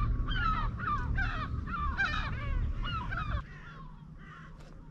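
Birds calling in a rapid series of short, sharp calls, about three a second, over a low rumble; the rumble drops away and the calls fade after about three and a half seconds.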